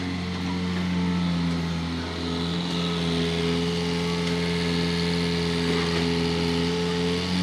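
Volvo wheeled excavator's diesel engine running steadily while the machine dumps its bucket and swings its arm, with a higher whine joining about three seconds in.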